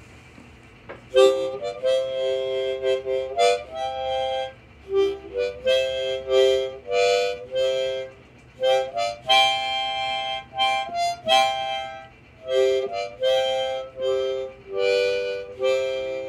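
Harmonica playing a tune in chords, several notes sounding together in short phrases with brief breaks between them.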